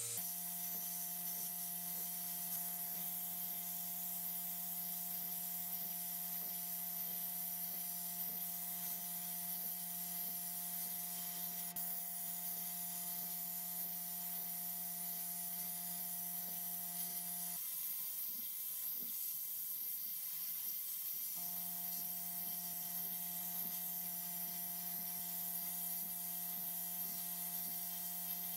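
Sandblasting gun hissing steadily inside a blast cabinet as it blasts abrasive over a pressed-steel toy truck part, stripping old paint and rust. A steady hum of several low tones runs under the hiss and drops out for a few seconds about two-thirds of the way through.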